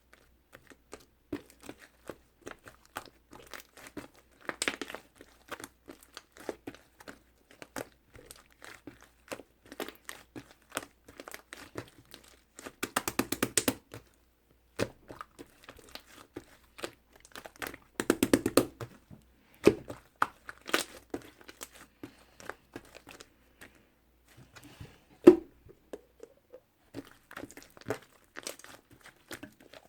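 Slime being squished and pressed by hand, giving many small clicks and pops, with denser runs of clicks twice and one sharp loud pop near the end.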